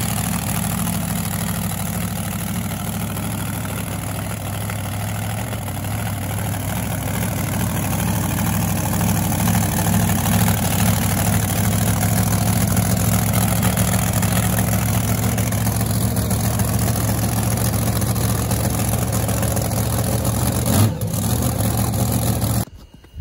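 An engine idling steadily, a little louder from about eight seconds in, then cut off abruptly near the end.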